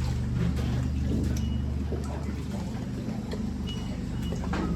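A boat's engine running with a steady low drone, with faint water splashes and knocks over it.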